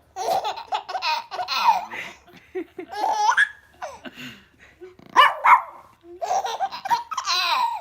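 A baby laughing in repeated high-pitched bursts, with short breaks between them.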